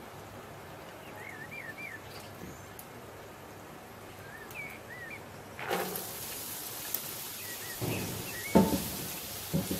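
Chopped vegetables tipped from a bowl into hot oil in a pan, which starts sizzling suddenly about halfway through and keeps on. A wooden spoon knocks and scrapes against the pan near the end.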